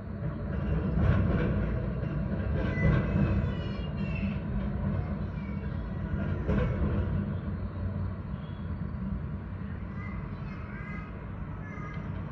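A train running on the rails: a low rumble that swells about a second in and eases off after about seven seconds.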